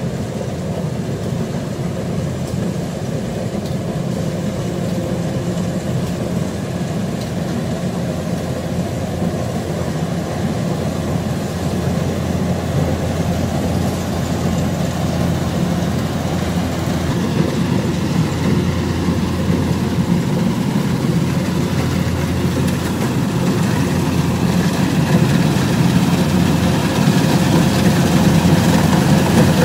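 Kubota DC-105X rice combine harvester's diesel engine and machinery running steadily, growing gradually louder.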